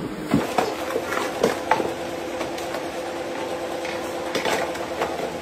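Scattered light clicks, taps and knocks of things being handled on a cluttered desk and around the cables behind a TV, over a steady low hum.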